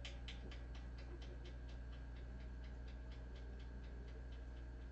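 A kitten at its bowl making quick, regular clicking sounds, about five a second, that grow fainter toward the end, over a steady low electrical hum.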